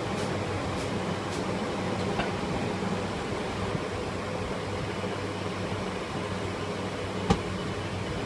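Steady rushing noise with a low hum from a gas wok burner and kitchen fan running. Light clicks about every half second in the first second and a half as the wok is tossed, and one sharp knock about seven seconds in.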